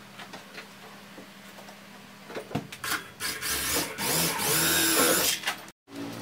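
A few light handling clicks, then an electric drill driving screws into the MDF cabinet panel. It starts about two and a half seconds in with a couple of short spurts, then runs steadily for about two seconds and stops abruptly.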